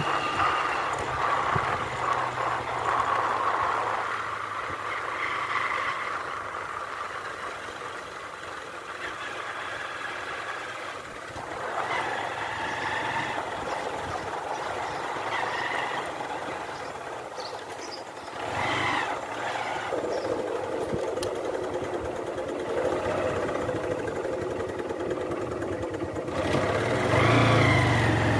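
Motorcycle engine running while the bike is ridden, rising and falling with the throttle, and getting louder near the end.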